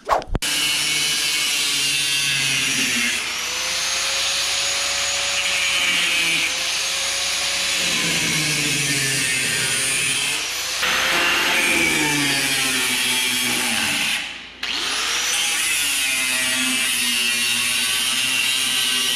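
A power tool working the truck's sheet-metal bodywork, running in long stretches with its pitch sagging and recovering under load. It stops briefly about 14 seconds in and spins back up.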